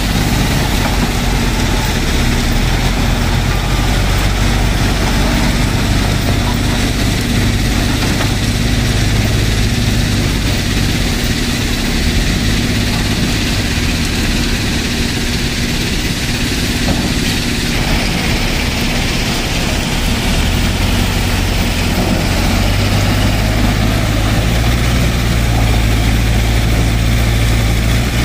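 JCB 3DX backhoe loader's diesel engine running steadily as the machine drives and works its front loader bucket. The engine note rises and gets louder in the last several seconds as the bucket is pushed into the gravel pile.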